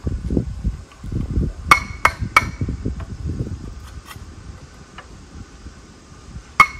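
Sharp metallic clinks of a utensil striking a metal cooking pot or pan: three in quick succession about two seconds in and two more near the end, each with a short ring, over an uneven low rumble.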